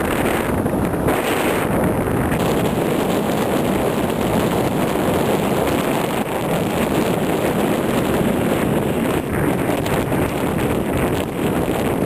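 Wind rushing over the microphone of a camera carried by a paraglider pilot in flight: a steady, even rushing noise.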